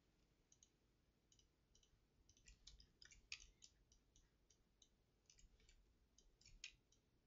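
Faint computer mouse clicks, scattered and irregular, most of them bunched from about two and a half to four seconds in, over near silence.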